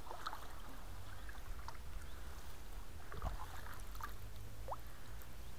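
Canoe drifting on a slow river: faint water lapping and trickling against the hull, over a steady low rumble, with scattered short bird chirps, one of them rising, near the end.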